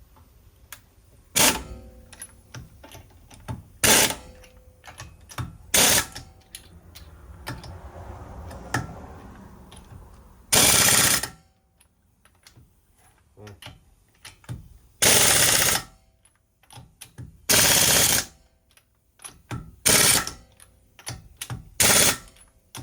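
Impact wrench running in about nine short bursts, some nearly a second long, rattling as it spins and hammers lug nuts onto a wheel. Small clicks come between the bursts.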